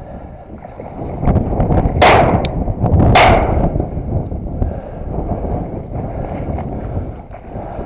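Two shotgun shots about a second apart, fired at flushed teal, over steady wind rumble on the microphone.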